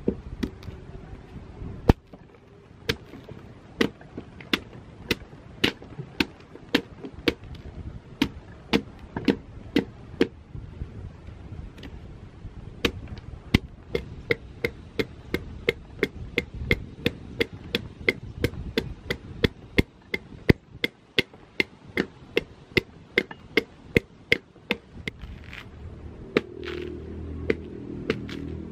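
Machete chopping a block of coconut-palm wood: a long run of sharp, evenly paced chops, about one and a half a second, with a couple of short breaks.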